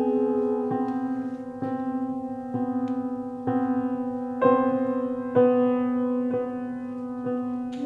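Slow instrumental music: a sustained chord restruck about once a second in a steady tolling pattern.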